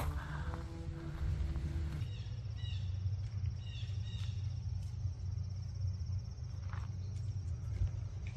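Woodland ambience: a steady high insect trill with a few short bird chirps, over a low rumble of wind on the microphone. A held note of background music cuts off about two seconds in.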